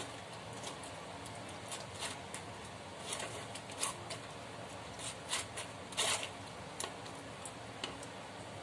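A steel spoon scraping and pressing wet ground crab-leg paste against the mesh of a plastic strainer, straining out the juice. The short, irregular scrapes and squelches sit over a steady hiss, with a louder scrape about six seconds in.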